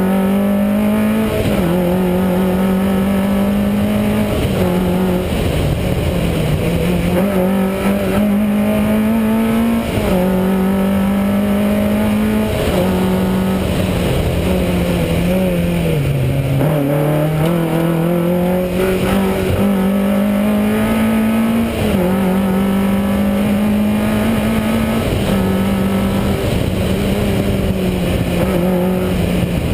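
Rally car engine at high revs under hard acceleration, the pitch climbing and then dropping sharply every two to three seconds as the driver shifts gear. About halfway through the revs sag lower and build back up, as when the car slows for a corner.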